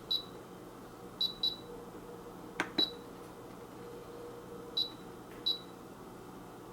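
Six short, high electronic beeps at uneven intervals, like the key presses on a coffee maker's control panel, with a sharp click just before the fourth beep.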